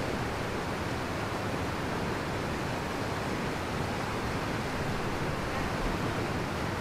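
Steady rush of a small waterfall, whitewater spilling over granite ledges.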